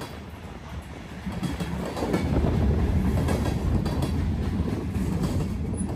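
BNSF freight train rolling past, a steady low rumble of wheels on rail with clickety-clack over the rail joints. The rumble gets louder about two seconds in.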